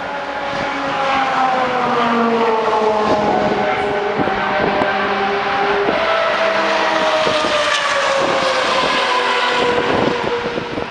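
A loud engine drone, several steady tones sliding slowly down in pitch, swelling about a second in and fading near the end, with a few knocks over it.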